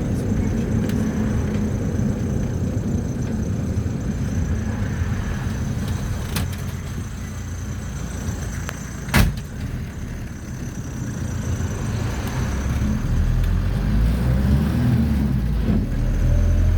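Mercedes-Benz T1 minibus heard from inside the cabin on the move: steady engine and road rumble, with a sharp knock about nine seconds in. The engine rumble grows louder in the last few seconds.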